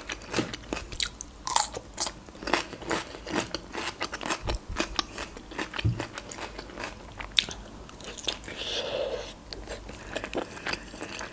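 Close-miked chewing of fresh cucumber and boiled khinkali dumpling: many short, crisp crunches and wet mouth clicks.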